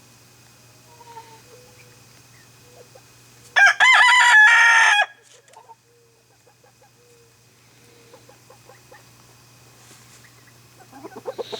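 A rooster crows once, loud, for about a second and a half, a few seconds in. Softer clucks and short calls from the chickens come before and after, with a quick run of clucking near the end.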